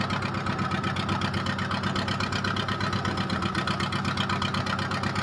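A fishing boat's engine running steadily with an even, fast chugging pulse and an unchanging low hum.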